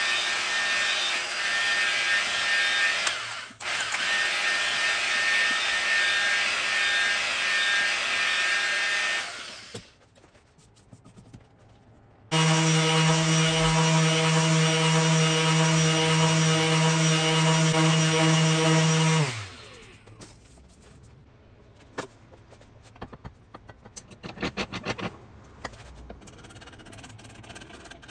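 Angle grinder with a mushroom sanding pad sanding inside a hollowed wooden bowl cavity for about nine seconds, with a brief dip partway. After a short pause, a random orbital sander runs with a steady hum for about seven seconds, then winds down with falling pitch. The rest is quiet with scattered light clicks and knocks.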